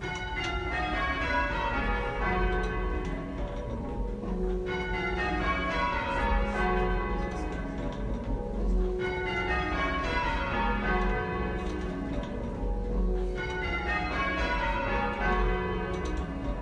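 Church bells ringing rounds, half-muffled: a 6 mm rubber sheet muffle on one side of each clapper damps every other stroke, so open and muffled rows alternate. The sound is heard from within the ringing chamber. Each row is a descending run of bell notes, repeating about every four and a half seconds.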